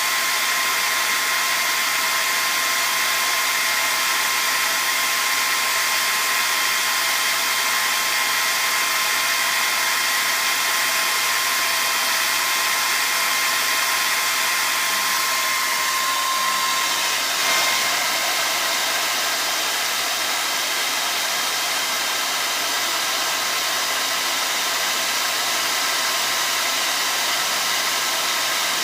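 Hair dryer running steadily: a constant rush of air over a thin motor whine. About two-thirds of the way through the whine wavers and shifts briefly, then settles again.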